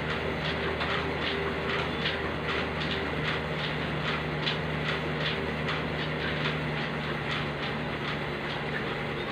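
Elliptical cross-trainer being pedalled: a steady mechanical hum with an even, rapid run of clicks, about two to three a second.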